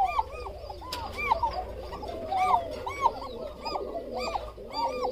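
Bashiraj koka pigeons calling: a quick run of short rise-and-fall notes, several a second, the breed's unusual call.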